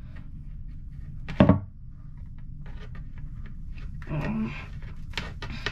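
A box being handled on a wooden desk during unboxing: one loud knock about a second and a half in, then light clicks and rustling, over a steady low hum.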